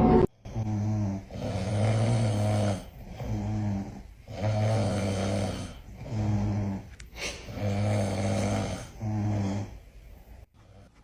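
Loud rhythmic snoring, each breath a short low snore followed by a longer one, repeating about every three seconds. It ends on a single short snore near the end.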